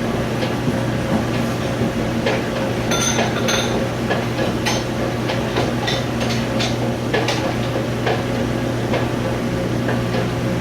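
Dishes, pots and cutlery clattering and clinking in a commercial kitchen dish pit, scattered knocks over a steady machine hum.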